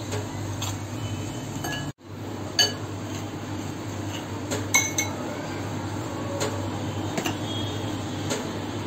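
Steel spoon clinking and scraping against a glass bowl as cream filling is scraped off biscuits: scattered light taps with a short glassy ring, the loudest about two and a half and five seconds in, over a steady low hum.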